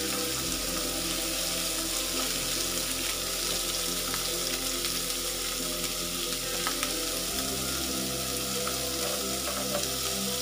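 Beef short ribs sizzling steadily as they sear in a hot double grill pan, with a spatula moving them about in the pan.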